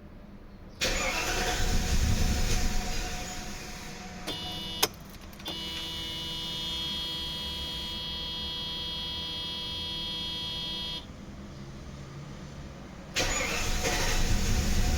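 Mercedes W124's M119 V8 being started with the MAP sensor reconnected: it catches about a second in and dies away by about four seconds. A sharp click and a steady whine follow, then the engine comes up loud again near the end. It will not run properly with the MAP sensor connected.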